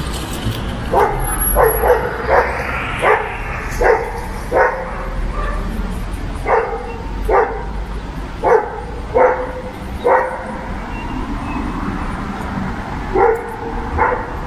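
A dog barking repeatedly: a run of about a dozen short, sharp barks, then a pause and two more barks near the end.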